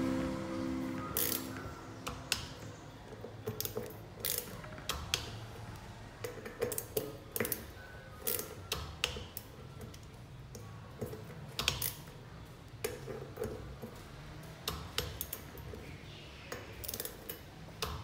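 Scattered metallic clicks and knocks at irregular intervals, the sound of hand tools working on a bicycle's parts, some with a brief ring.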